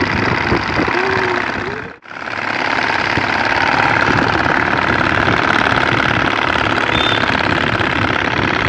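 A bicycle fitted with an add-on toy exhaust makes a rapid, steady rattling buzz like a motorbike engine as it is ridden. It cuts off sharply once, about two seconds in, then carries on.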